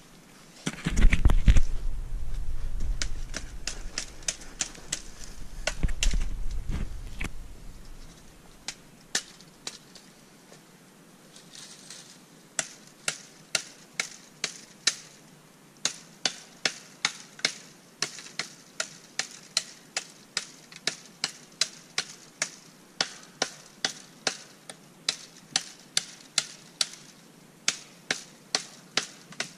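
Steady chopping with a blade into a small tree, sharp knocks about two a second that go on for most of the second half. Before the chopping there is a low rumbling noise on the microphone.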